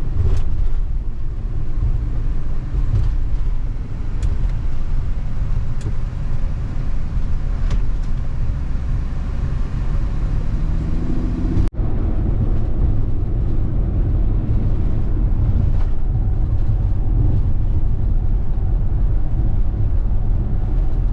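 Car driving on the road: a steady low rumble of engine and road noise, with a sudden short break about halfway through.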